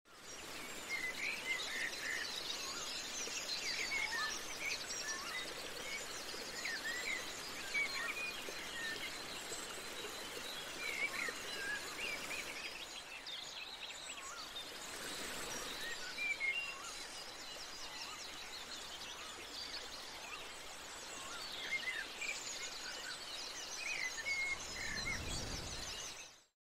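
Many small birds chirping and calling over a steady hiss of outdoor background noise. A broad whoosh swells and fades about halfway through, and the sound cuts off abruptly near the end.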